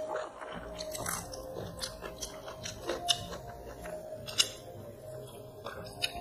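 Close-up chewing and eating sounds of people eating chicken biryani by hand, with irregular sharp mouth clicks and smacks, the loudest about three and four and a half seconds in.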